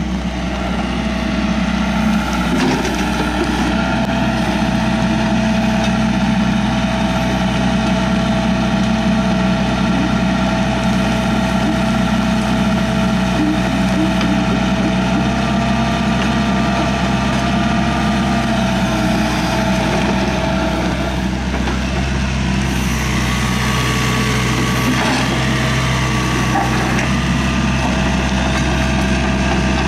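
Hyundai R555-7 mini excavator's diesel engine running steadily while the machine works its boom and tracks. A steady tone sits over the engine note and shifts slightly a little past twenty seconds in.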